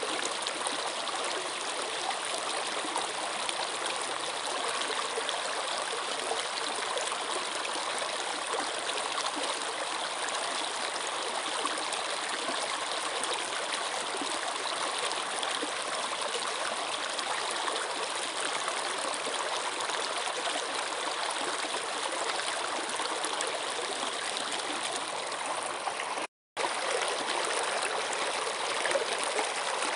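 Running water flowing steadily with a constant rushing sound, cut by a brief drop to silence late on.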